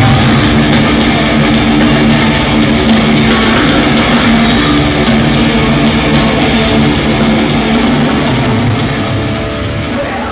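Heavy metal music led by electric guitar with bass, starting to fade out near the end.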